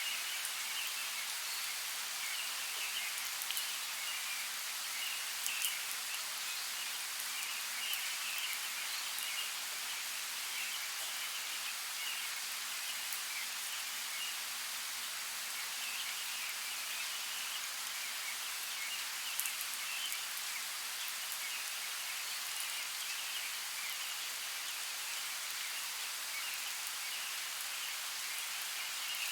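Steady light rain falling, with scattered drops ticking sharply and faint, fluttering chirps in the background.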